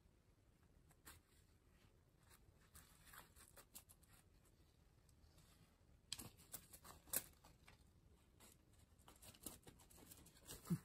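Mostly quiet, with scattered soft rustles and light taps as a cat bats and bites at a small cloth toy on a rug. The rustles grow busier from about six seconds in, with a sharper tick shortly after and a soft thump near the end.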